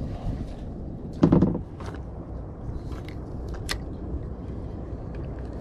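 A spinning rod and Penn reel being handled on a plastic kayak: a thump about a second in, then a few sharp clicks, over a low steady rumble.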